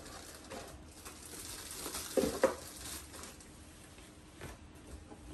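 Rustling of plastic packaging and clatter of plastic juicer parts being unpacked and handled, with two sharp knocks about two seconds in.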